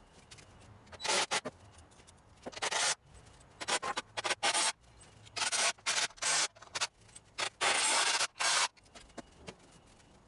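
Construction-grade lumber boards scraping and rubbing against wood as they are handled and slid into place on a loft bed frame: a run of irregular short scrapes, the longest one near the end.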